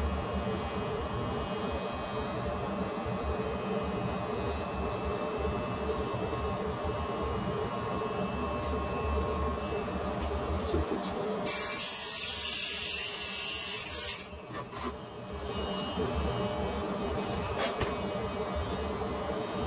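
Electric hair clippers running with a steady hum while trimming a man's own hair. About two-thirds of the way in, a loud hiss lasts nearly three seconds and cuts off sharply.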